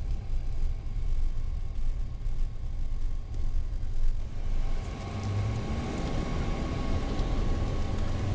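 A car driving along a town street, heard from inside the cabin: a steady low rumble of road and engine noise. From about halfway through, the engine's hum becomes steadier and more even.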